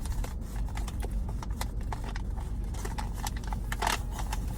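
Close-up eating sounds: a person chewing a chicken sandwich with lip smacking, heard as a string of quick irregular wet clicks.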